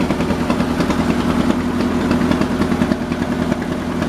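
A small fishing boat's engine running steadily under way, with a fast, even putter.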